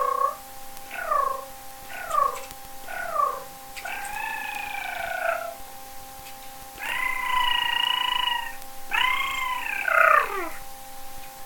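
A woman's voice making high, cat-like trilling noises with a rolled R: three short falling chirps about a second apart, a longer wavering call, a long held note, then a long call that rises and falls away.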